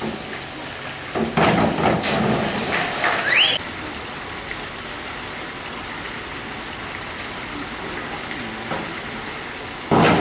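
Two synchronized divers hitting the water together with a loud splash about a second in, followed by brief cheering from the poolside. A steady rushing water hiss runs underneath, and a second loud burst starts just before the end as the next pair leaves the springboard.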